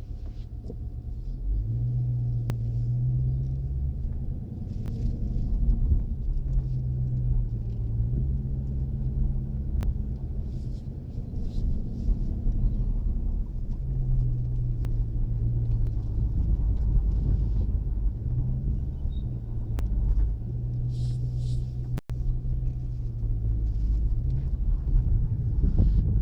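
Chrysler 300 SRT Core driving slowly in tight circles: a steady low rumble with a low howl that swells and fades every few seconds. The owner suspects the rear differential but is not sure.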